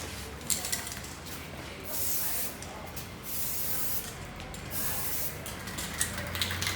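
Aerosol spray can of clear coat hissing in several short bursts of under a second each, as it is sprayed onto a painted bike frame.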